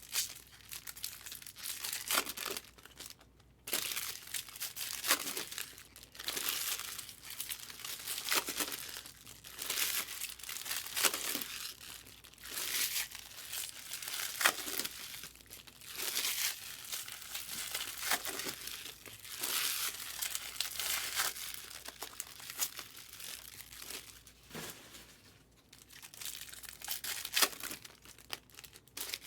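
Foil wrappers of Topps Chrome trading card packs crinkling and tearing as packs are opened, in irregular bursts of rustling with short lulls.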